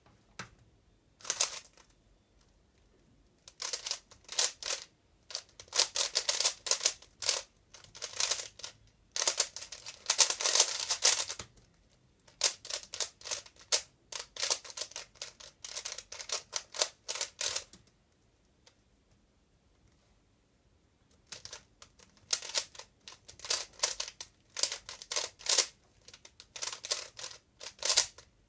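A 3x3 speedcube being turned fast: dense bursts of rapid plastic clicking and clacking, broken by short pauses, with a longer quiet stretch about two-thirds of the way through.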